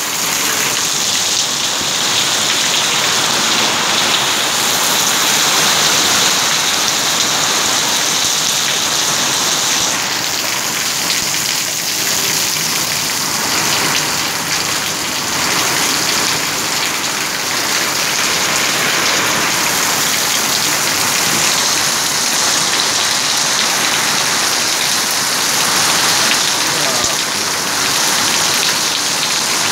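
Heavy rain falling steadily onto wet concrete ground, a dense, even hiss of drops with no breaks.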